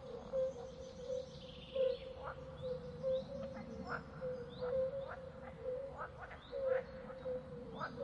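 Animal calls: short chirps repeating every half second or so over a steady, pulsing low call.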